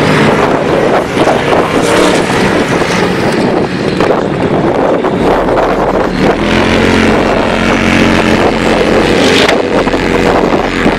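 Off-road vehicles, dune buggies and side-by-side UTVs, with their engines running as they drive across sand dunes.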